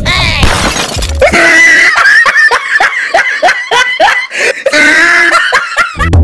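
Laughter, a rapid string of short 'ha' pulses, about four a second, over background music, after a short noisy burst at the start.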